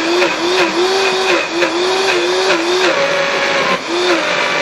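Vitamix Professional 500 blender running on thick whipped cream while the tamper is pushed down through the lid, churning it into butter. The motor pitch sags and recovers several times a second, then jumps higher about three seconds in.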